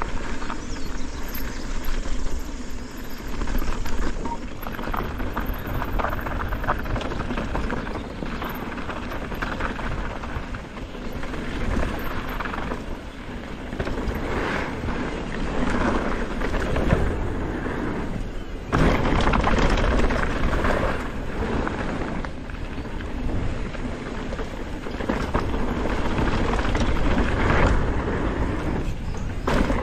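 Specialized Status mountain bike descending a dirt trail: tyre rumble and wind buffeting the microphone, with frequent knocks and rattles as the bike runs over bumps and roots.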